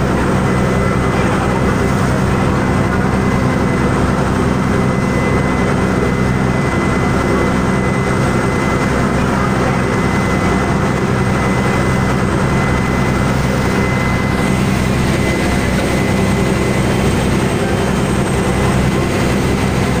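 A passenger launch's engine running steadily, a constant low drone, over the rushing wash of water churned up in its wake. A thin steady high tone runs through it.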